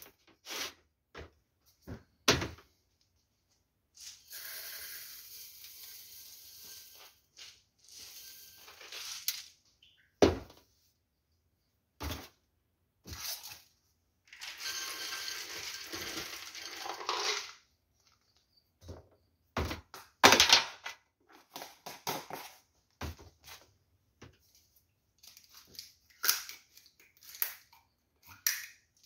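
Dry ingredients poured into a glass blender jar in two stretches of a few seconds each, with scattered knocks and clicks of containers, caps and lids handled on a metal countertop between them.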